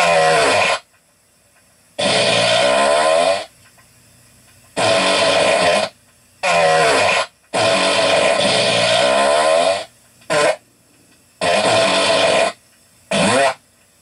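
A series of about eight fart sounds, each a rasping blast with a wavering pitch, from a brief pop to about two seconds long, separated by short quiet gaps.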